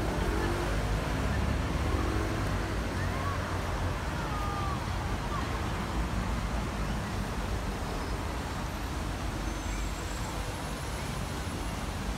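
Busy city street ambience: a steady rumble of passing road traffic, with passers-by talking indistinctly.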